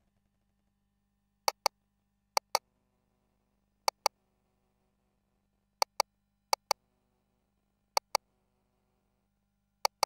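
Ultrasound machine's control clicks as measurement calipers are set on the scan: short, sharp clicks in pairs about a fifth of a second apart, seven pairs at uneven intervals.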